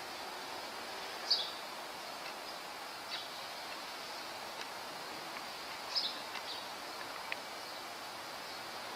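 Steady background hum of street noise with a few short, high bird chirps, the clearest about a second and a half in and again about six seconds in.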